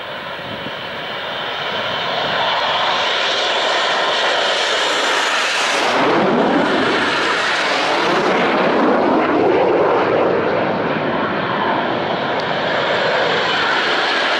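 Red Arrows BAE Hawk T1 jets taking off and climbing away in formation. Their Adour turbofan engines make a loud, steady jet roar that grows over the first two seconds, and the sound drops in pitch about six seconds in as the jets pass.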